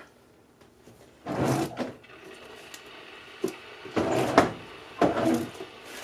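Kitchen faucet running cold water into a stainless steel sink as it is filled, a steady splashing hiss from about two seconds in. A few louder clunks and clatters of handling come over it.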